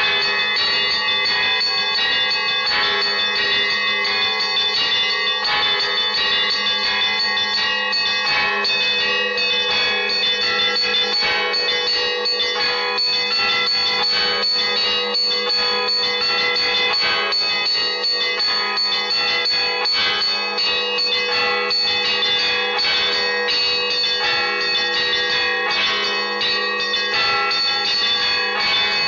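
Russian church bells of a cathedral bell tower ringing a zvon: many bells of different sizes struck in quick, continuous patterns over a sustained low bell tone.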